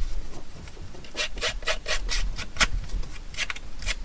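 Scissor blade scraped along a paper edge to rough and distress it: quick rasping strokes, a run of about seven over a second and a half, then a few more near the end.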